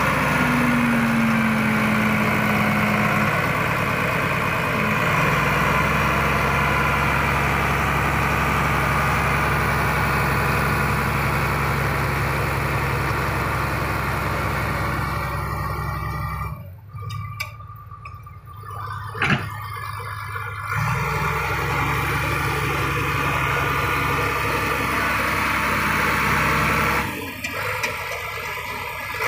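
Crawler bulldozer's diesel engine running steadily under load as it works, its sound dropping away for a few seconds about two-thirds in and again briefly near the end.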